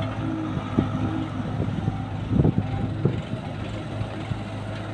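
Tata Hitachi excavator's diesel engine running steadily, with scattered knocks and clatter as the bucket empties soil into a tractor trolley's steel bed and swings back to the heap; the loudest clatter comes about two and a half seconds in.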